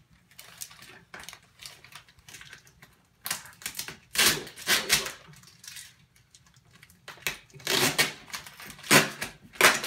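Packing tape, foil gift-wrap paper and tissue paper being torn and crinkled by hand as a box is opened. It comes as a series of short ripping and rustling bursts, loudest in the second half.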